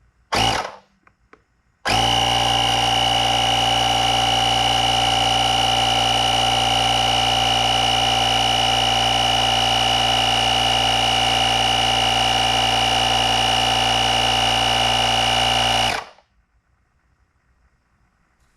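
GOOLOO A3 jump starter's built-in portable air compressor inflating a car tire: a brief click as the power button is pressed, then the compressor running steadily with a high whine over a low hum, and cutting off suddenly near the end as it auto-stops at its preset pressure of about 35 psi.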